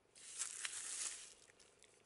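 A hand rubbing linseed oil into a wooden cleaver handle and shifting its grip: a rustling noise for about a second, with a few small clicks.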